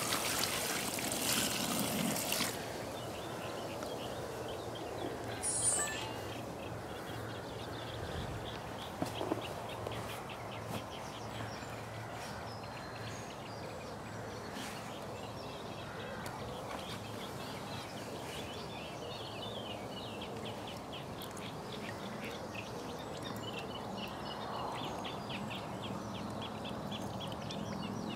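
Water poured from a bucket splashing onto a carp in an unhooking mat for about the first two and a half seconds, wetting the fish. Then quieter open-air background with faint bird calls.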